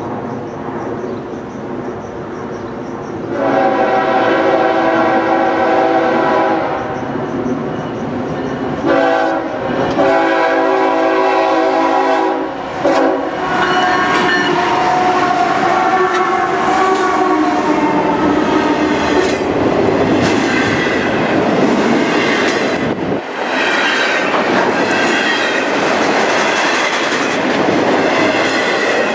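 Diesel freight locomotive's air horn sounding several blasts for a grade crossing, from about 3 to 13 seconds in. Then the lead units, a CSX ES44AH followed by a CW44AH and an SD60, run past, and double-stack intermodal cars roll by with wheels clacking over the rail joints.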